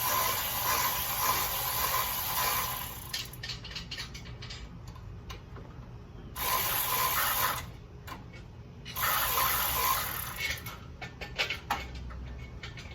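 Three bursts of hissing spray: a long one of about three seconds at the start, then two shorter ones about six and nine seconds in. A few light clicks and clinks follow near the end.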